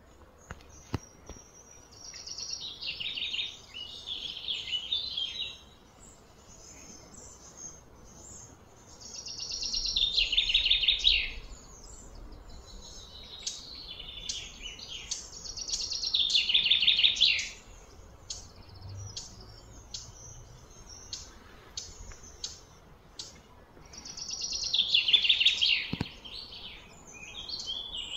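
Birds calling: loud, high-pitched trilling phrases come every several seconds, each swelling and fading over a couple of seconds, with short chirps between them.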